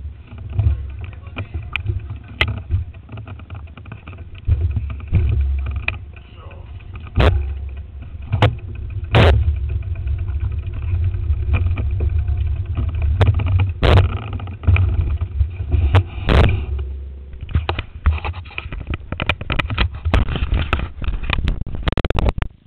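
Rumble and knocking of a handheld camera being handled and carried, with wind buffeting its microphone and several sharp knocks against the camera body.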